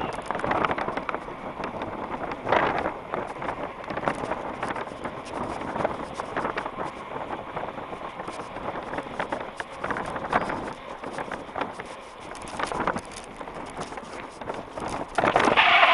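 Mountain bike ridden fast over tarmac, heard through a head-mounted camera: wind rushes over the microphone, with tyre noise and many small rattling clicks from the bike. Near the end there is a short, louder burst.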